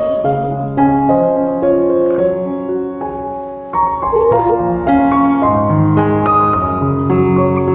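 Background piano music: a slow run of single notes and chords.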